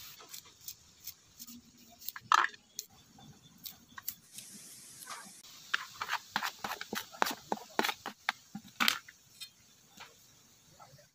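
Metal spoon clicking and tapping against a plate as coconut pieces are cut small with its edge. The taps come irregularly, with a few louder knocks, and grow busier in the second half.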